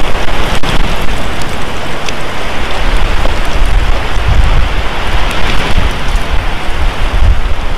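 Wind buffeting the nest camera's outdoor microphone: a steady rushing noise with irregular low rumbling gusts, loudest about four to five seconds in.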